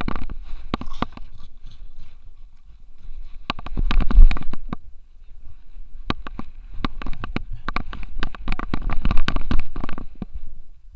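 Rapid clicking, knocking and low thumping from an action camera on a dog harness, jostled as a French Bulldog runs on grass. The noise comes in three bouts, at the start, around four seconds in and again from about six to ten seconds, with quieter gaps between.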